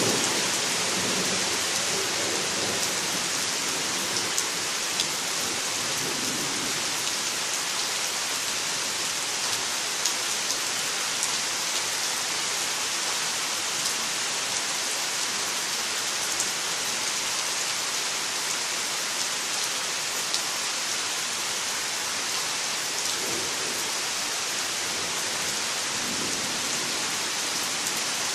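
Steady heavy summer rain falling on leaves and ground, an even hiss with scattered drip ticks. A thunder rumble dies away in the first few seconds, and a faint low rumble swells and fades again near the end.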